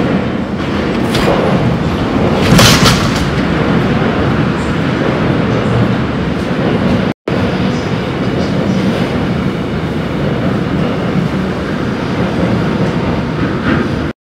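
Seoul subway train approaching and running past through a tunnel: a loud, steady rumble of wheels and running gear echoing off the tunnel walls, with a brief loud hissing burst about two and a half seconds in. The sound cuts out for an instant about seven seconds in.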